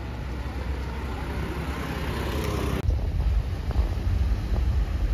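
Road traffic at night, with a vehicle growing louder as it approaches. About three seconds in it cuts abruptly to a gusty low rumble of wind buffeting the microphone.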